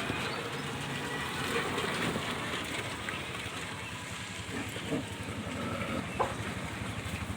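Steady street traffic noise with an engine running, and a few faint knocks.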